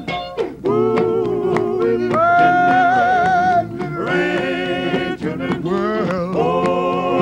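Male gospel vocal group singing close harmony, holding a series of long chords with vibrato, with one high note held for about a second and a half near the middle.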